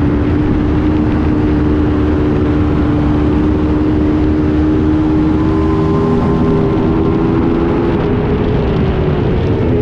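Racing motorcycle engine running hard at high revs under full acceleration, its pitch climbing slowly, with a change in the engine note near the end. Heavy wind rumble on the bike-mounted camera at over 80 mph lies underneath.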